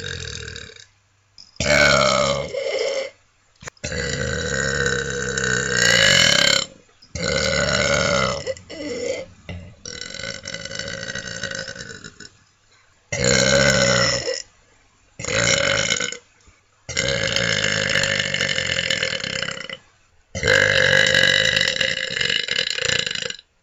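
A person belching: a series of long, loud burps, some lasting about three seconds, with short pauses between them.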